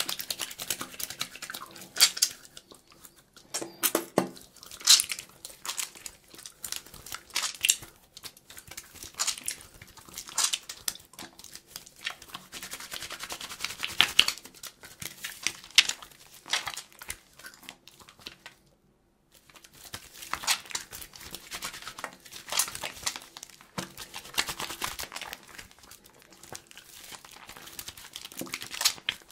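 Soapy hands rubbing and lathering together, giving wet, irregular rubbing strokes. There is a short pause a little past the middle.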